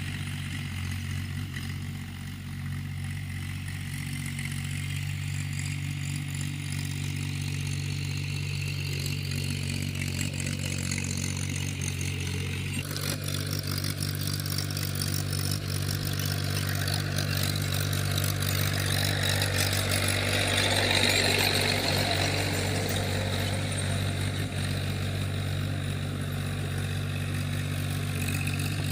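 Tractor engine running steadily under load while ploughing a field, growing louder around twenty seconds in.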